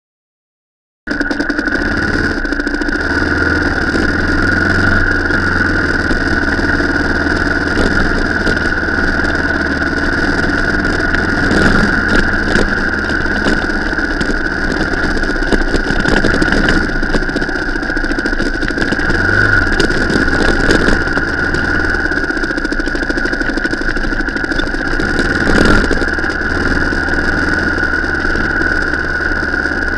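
Car engine running steadily, starting about a second in, with a constant high-pitched whine over the low engine hum.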